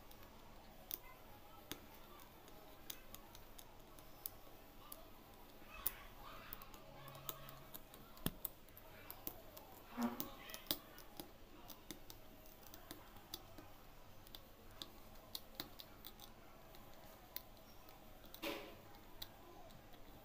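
Faint, irregular clicks and taps of a needle piercing satin stretched taut on an embroidery frame as small beads are sewn on, with a few brief louder rustles.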